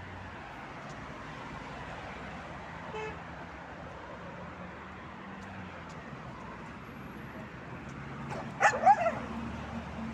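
A dog barks twice in quick succession near the end, a guard-dog warning at a stranger approaching the bag she is guarding, over a steady hum of nearby road traffic.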